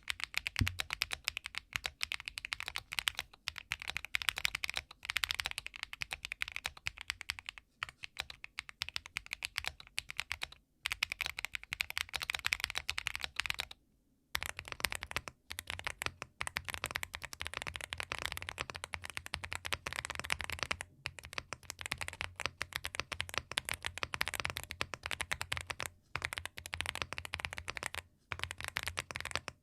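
Fast, continuous typing on a mechanical keyboard with HMX Violet switches (Keychron Q1 Max), broken by a few short pauses. About halfway through, after a brief stop, the typing moves to a second mechanical keyboard with WS Heavy Tactile switches (Rainy75), whose keystrokes have a deeper thock.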